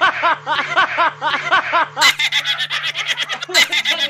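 A man laughing hard in repeated 'ha' bursts, about three a second. After about two seconds the laughter turns faster, higher and breathier.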